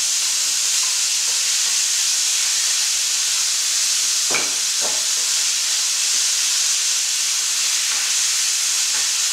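Chicken thighs and smoked bacon sizzling in a stainless steel skillet: a steady frying hiss, with two short knocks about halfway through.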